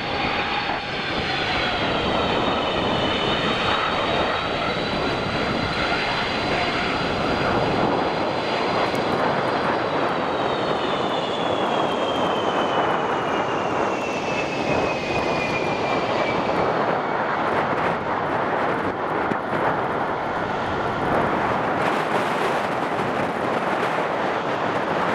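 Boeing 757-200 jet engines running as the airliner taxis: a steady jet noise with a high engine whine that glides slowly down in pitch in the middle of the stretch.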